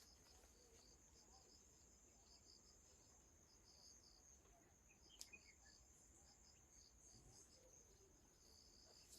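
Near silence with faint, steady, high-pitched insect chirring pulsing evenly in the background, and a soft click about five seconds in.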